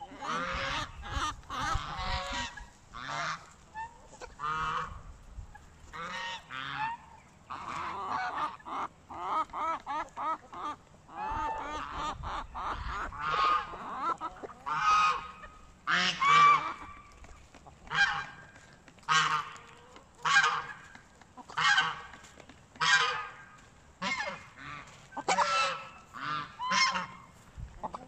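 Domestic geese honking over and over, several calls overlapping at first, then single loud honks about once a second through the second half.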